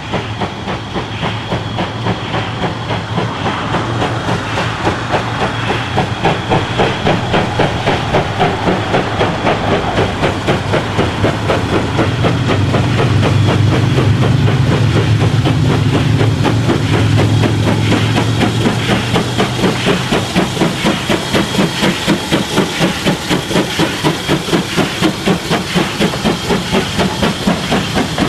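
Steam locomotive working, its exhaust beats chuffing in a steady rhythm over a hiss of steam, growing louder to a peak about halfway through and easing a little after.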